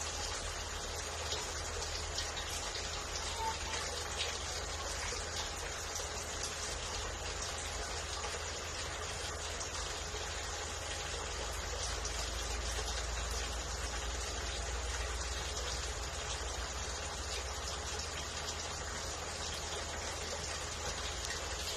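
Aquarium filter running: a steady splash and trickle of water, with a low hum underneath.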